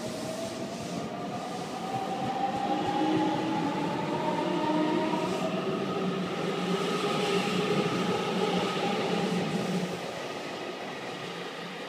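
JR Kyushu 813 series electric multiple unit pulling away from the platform: its traction motors and VVVF inverter whine, with several tones rising in pitch as it accelerates, over the rumble of wheels on rail. The sound falls off about ten seconds in as the last car passes.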